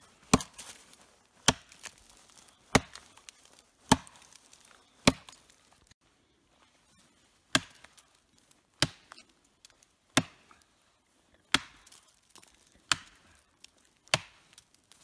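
Axe chopping into a knotty tree trunk: single hard strikes about every second and a quarter, with a pause of about two seconds midway.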